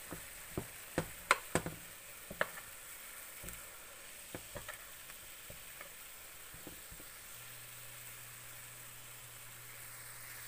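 A metal spoon tapping and scraping against a frying pan while a block of instant noodles is turned in hot water: a string of sharp clicks, most of them in the first few seconds, over a faint steady hiss from the water in the pan.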